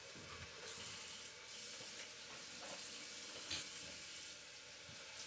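Kitchen faucet running while turkey bacon is rinsed under it in the sink: a faint, steady hiss of water, with a small knock about three and a half seconds in.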